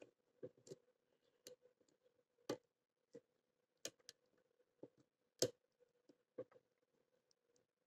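Faint, irregular clicks and taps of a curved hook pick working the pin stack of a small DABEL KA 2014 35 mm brass padlock held under a tension wrench, about a dozen in all, the loudest about five and a half seconds in. A faint steady hum runs underneath.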